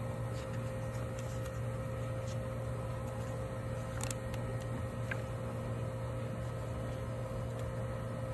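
Steady background hum with a constant tone over it, and a few faint clicks about four seconds in.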